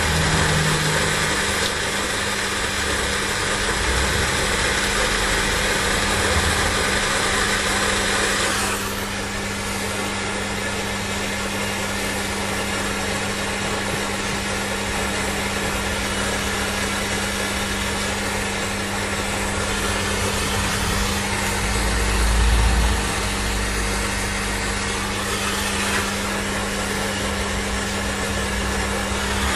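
A small electric motor and fan running steadily, with a constant low hum and a rushing air hiss that drops noticeably about nine seconds in. A brief low rumble comes a little after twenty seconds in.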